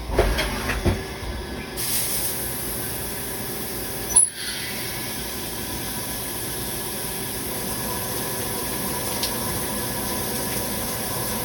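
Machinery running steadily with a hiss and low hum, with a few knocks in the first second and one sharp click about four seconds in.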